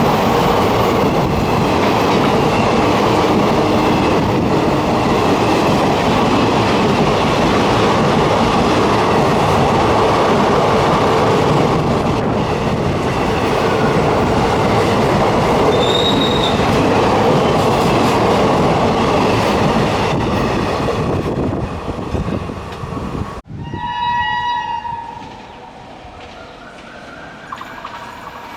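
An express train hauled by a WAP7 electric locomotive running through the station without stopping: a long, loud, steady rush of coach wheels on the rails. It cuts off suddenly near the end, and a short horn blast follows.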